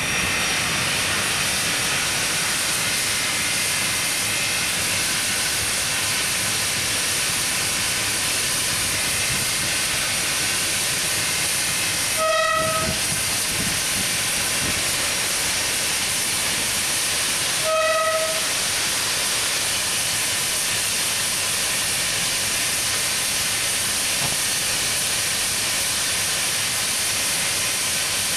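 Steam locomotive whistle sounding two short blasts about five seconds apart, near the middle, over a steady hiss.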